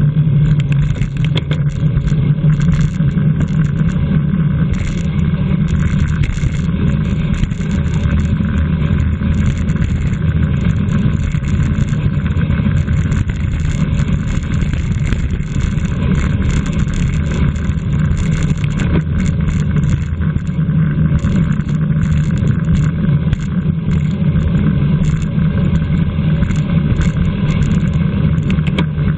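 Steady rumble of wind buffeting a camera microphone on a bicycle ridden at race speed.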